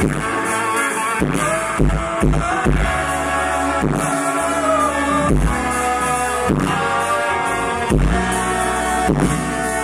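Live band playing a song, with electric guitar and electric bass, and a male singer's voice over it.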